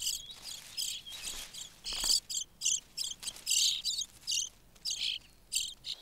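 Pied flycatcher nestlings begging at the nest: a run of short, high-pitched chirps, two or three a second, in uneven bursts.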